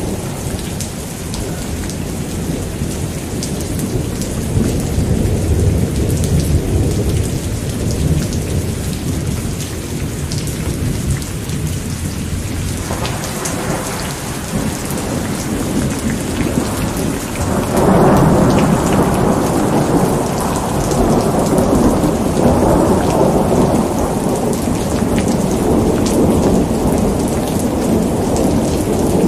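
Steady rain falling, with rolling thunder rumbling under it. The thunder swells about halfway through and is loudest a few seconds later.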